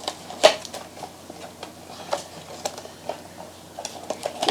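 Scattered clicks and taps of blind-box packaging being handled and pried at to open it, the sharpest about half a second in.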